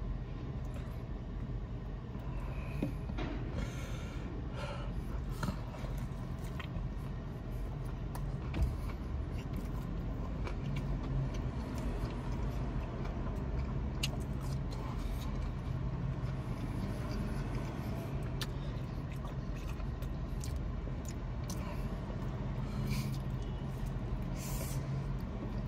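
Steady low hum of a car at idle, heard inside the cabin, with scattered small clicks and smacks of chewing and biting into a crispy fried chicken sandwich.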